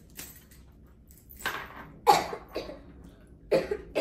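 A young girl coughing into her elbow, several coughs in two bouts, the loudest about two seconds in: the lingering cough of a child getting over a fever.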